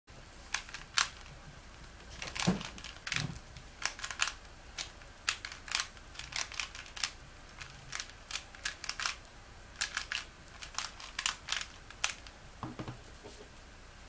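A plastic 3x3x3 Rubik's cube being turned by hand, its layers clicking and clacking in quick, irregular turns. A couple of duller knocks come about two and a half and three seconds in, and another near the end.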